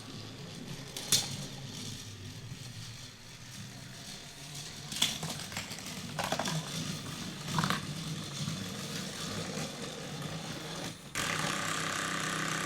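Battery-powered toy train's small electric motor whirring as it runs on plastic track, with a few sharp plastic clacks. About eleven seconds in the whir becomes louder and steadier.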